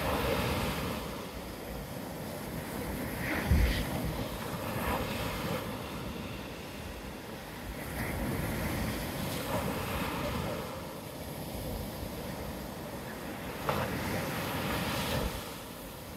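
Surf: waves breaking and washing ashore, swelling and fading every few seconds, with wind rumbling on the microphone and one stronger gust a few seconds in.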